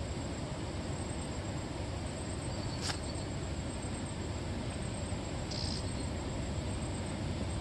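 Steady outdoor background noise, mostly a low rumble, with a faint, steady, high insect trill. There is one sharp click about three seconds in and a brief high chirp about five and a half seconds in.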